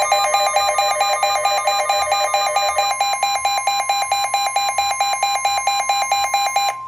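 Weather alert tones: a rapid electronic beeping alarm, about six beeps a second, over a steady tone of about 1 kHz, the NOAA Weather Radio warning alarm tone that signals a warning is about to be read. Just before the end the beeping stops and the steady tone carries on alone.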